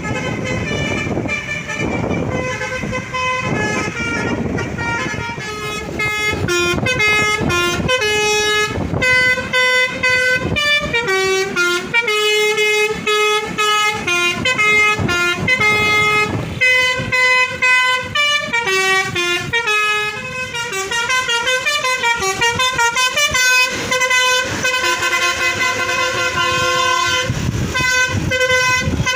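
Basuri 'telolet' multi-tone bus horn playing a tune of quick stepped notes, loud and changing pitch several times a second. Engine and road rumble lies under the first few seconds.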